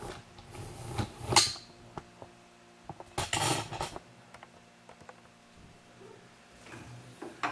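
Metal rifle-stock parts and hand tools clinking and knocking as they are handled and tightened: scattered clicks, a sharp knock about a second and a half in, and a longer rattle around three to four seconds in.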